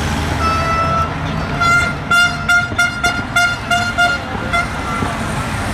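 Car horn honking: one held blast of about a second, then a quick run of short toots, about four a second, for some three seconds, over the low rumble of slow-moving traffic.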